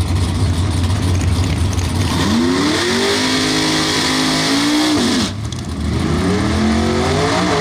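Chevy II Nova drag car doing a burnout: the engine revs climb and hold high while the spinning rear tyres screech. The sound breaks off abruptly a little past halfway, then the revs climb again.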